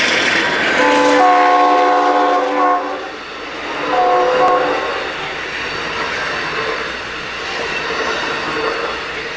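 Locomotive air horn sounding a chord of several notes: a long blast about a second in, then a short blast near four seconds, over the noise of a passing train.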